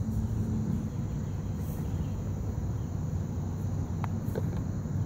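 Steady low rumble of a spinning playground merry-go-round, with a faint hum in it, with a couple of faint clicks about four seconds in.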